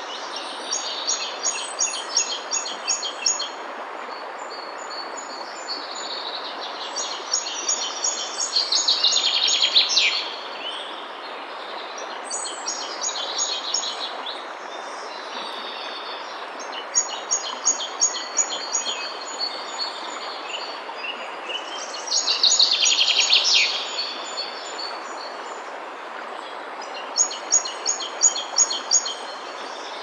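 Steady rush of a fast stream running over rocks, with songbirds singing repeated high, rapid trills above it. Twice, a louder song phrase sweeps down in pitch.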